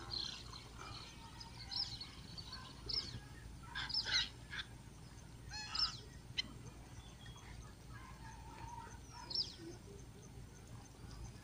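Birds calling: short, high chirps and sweeping calls scattered throughout, loudest about four and six seconds in.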